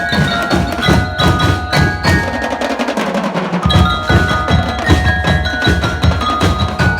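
Drum and lyre band playing: bell lyres ringing out a melody over snare and bass drums. The deep drum hits drop out for about a second near the middle, then come back in.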